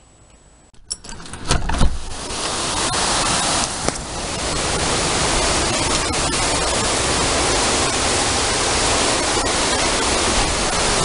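Hurricane wind and heavy rain, a loud steady rush that sets in about a second and a half in, with gusts buffeting the microphone into a low rumble.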